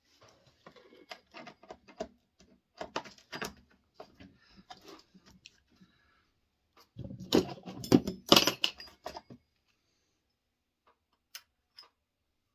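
Saw chain and small metal parts clinking and rattling as they are handled, with a louder run of clinks and knocks about two-thirds of the way through, then a few single clicks.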